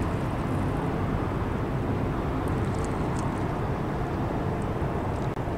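Steady low rumble of a passing container ship's engine and propeller.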